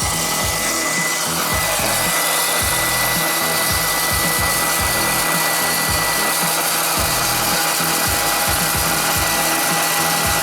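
Electric hot-air popcorn popper running steadily: its fan motor whines at a constant pitch over the rush of blown air.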